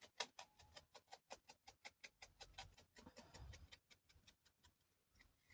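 Faint quick light taps, about five or six a second, of an ink blending tool dabbing Distress ink onto the edges of a small wooden chopping board; they stop near the end.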